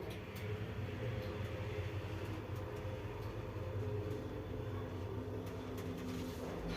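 Ride inside a ShchLZ Ecomax passenger lift car travelling between floors: a steady drive hum with a rumble from the moving car.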